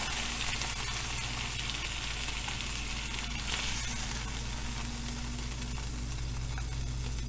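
Pork chops and their rendered fat sizzling steadily in a hot skillet, with a faint steady low hum underneath.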